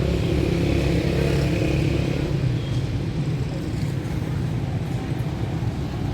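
Motor vehicle engine running close by: a steady low engine note over street noise.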